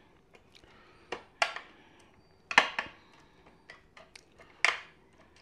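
A fork or spoon clinking and scraping against a dish about half a dozen times while stirring bacon bits into pineapple, the loudest clink about halfway through.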